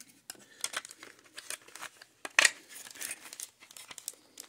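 Thin plastic bags crinkling in short, irregular crackles, the loudest about halfway through.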